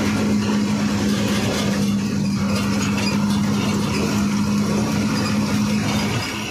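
Ashok Leyland truck's diesel engine heard from inside the cab while driving at speed: a steady loud drone with road noise, easing a little just before the end.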